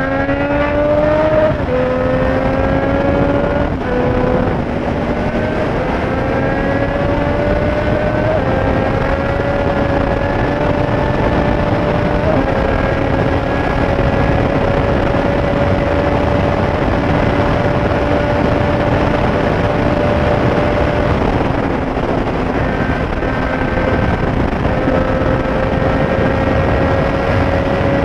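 Triumph Street Triple 765 inline three-cylinder engine accelerating through several upshifts in the first dozen seconds, each a rising pitch cut by a quick drop. It then cruises at a steady pitch, eases off a little past twenty seconds and pulls again near the end, with a constant rush of wind noise beneath it.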